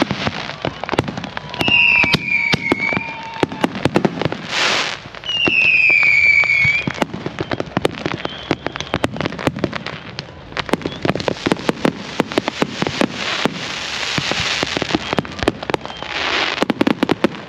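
Fireworks going off in quick succession: dense crackling pops and bangs, with two falling whistles about two and six seconds in, and bursts of rushing hiss.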